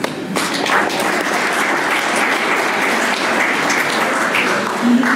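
Audience applauding, a steady patter of many hands clapping that cuts off abruptly at the end.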